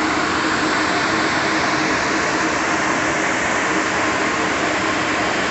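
Steady engine and machinery noise of a construction site, with a faint steady hum and no distinct knocks or changes.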